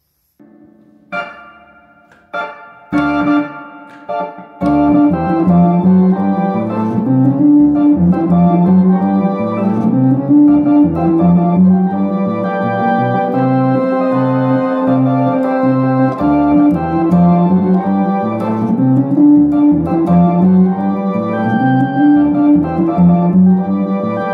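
Philips Philicorda electronic organ being played: a few short, separate chords with pauses, then, from about four and a half seconds in, a continuous tune with a repeating bass line under chords and melody.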